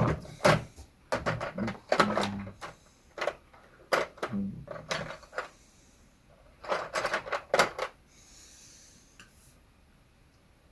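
Craft supplies handled on a tabletop: a string of clicks, knocks and clatters for about eight seconds, then a faint soft rustle.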